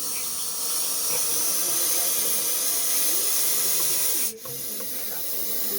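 Russell's viper giving its loud warning hiss. The hiss swells about half a second in, cuts off sharply for an instant about four seconds in, and then goes on more softly.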